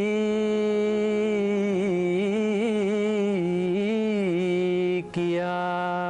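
A solo voice singing a slow Sinhala folk chant unaccompanied, drawing out long held notes with wavering ornaments. It breaks for a breath about five seconds in, then takes up a steady held note.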